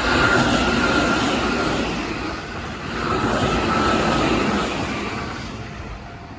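Keihan electric train passing over a level crossing at speed: a loud rush of wheels on rail that swells twice, with a faint high whine, then dies away near the end.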